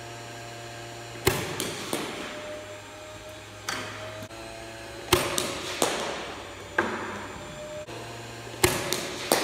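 Cricket balls arriving at a batter in an indoor net, three deliveries about three and a half seconds apart: each a sharp crack followed by two or three smaller knocks of the ball off bat, floor and netting, echoing in the enclosed hall. A steady low hum sits under it and drops out after each delivery.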